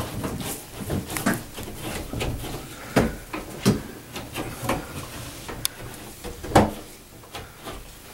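Irregular clicks and knocks of bathroom exhaust fan parts being handled and fitted into the ceiling housing, with the loudest knock about two-thirds of the way through.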